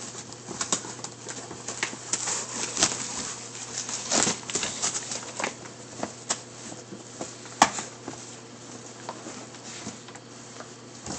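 Puppies pawing, scratching and chewing at a cardboard box: a run of scrapes, rustles and sharp taps on the cardboard, with one sharp knock about seven and a half seconds in.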